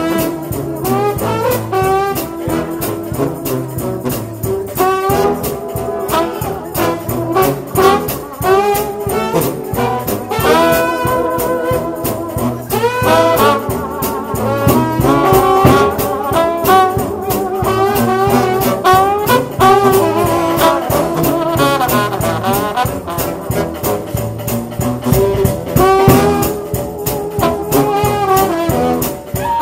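Gospel shout band music: a trombone-led brass ensemble playing a melody over a steady percussion beat.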